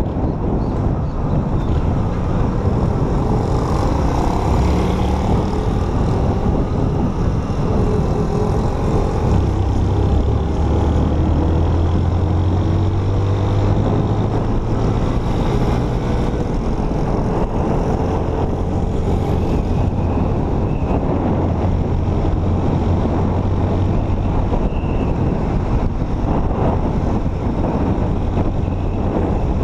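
Small street motorcycle with a freshly rebuilt engine, running while being ridden, pulling steadily and rising in pitch as it accelerates around the middle.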